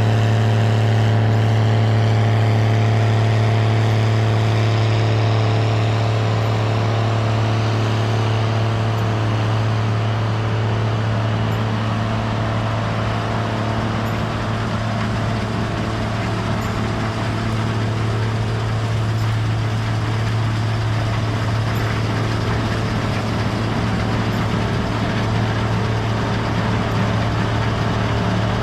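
Gleaner R72 combine running at a steady engine speed while harvesting rye: a constant low engine drone with a wash of machinery noise over it. The sound eases off slightly a few seconds in.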